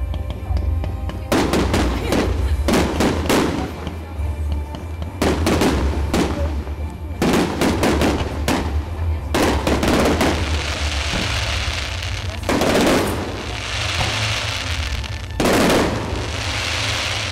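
Aerial fireworks shells bursting in irregular quick succession, about a dozen sharp bangs. In the second half several bursts are followed by a crackling hiss from crackling stars.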